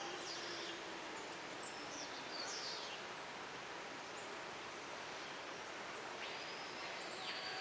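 Short bird chirps and whistles over a steady rushing background noise, with a longer call about six seconds in.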